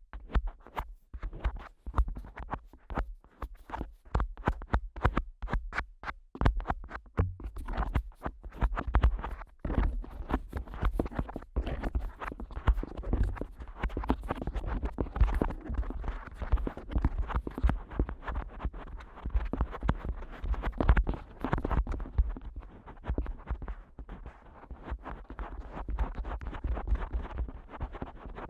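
Fingers tapping, flicking and rubbing directly on the ears of a Neumann KU100 dummy-head microphone. Quick, irregular taps at first, turning into denser scratchy rubbing about eight seconds in.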